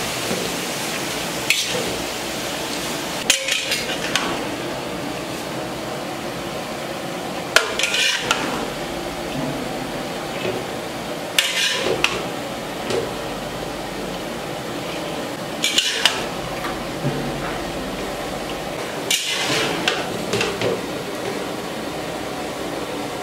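Spatula stirring and scraping a cabbage and fish-head curry in a pan, clattering against the pan in short bursts about every four seconds over a steady frying sizzle.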